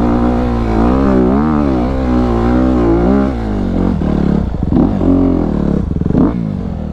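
Honda dirt bike's engine running under a rider, revving up and down with the throttle for the first few seconds and then less evenly as he rides on down the trail.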